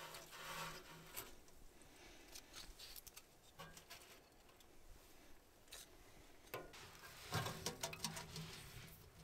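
Thin wood splinters and shavings rustling and clicking as they are fed by hand into a small steel wood stove's firebox, with a freshly lit kindling fire crackling faintly. A louder burst of clicks and knocks comes near the end.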